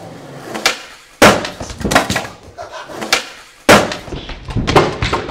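Skateboard on a hard indoor floor: wheels rolling between a series of sharp wooden clacks and slaps as the board is popped and lands during flip tricks. The two loudest slams come about a second in and past the middle.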